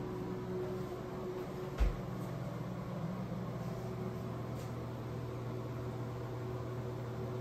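Steady low mechanical hum, with a single dull thump about two seconds in.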